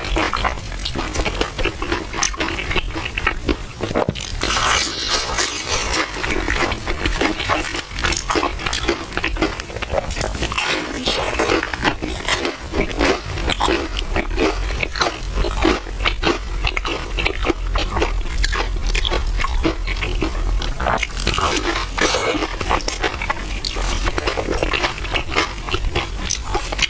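Close-miked eating sounds: milk tea with soft, chewy purple rice being slurped and chewed, with a steady stream of wet mouth clicks and smacks.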